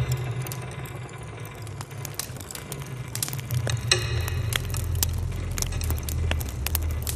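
Installation soundtrack: a low droning hum sprinkled with short clicks and crackles, with a deeper rumble coming in about three and a half seconds in.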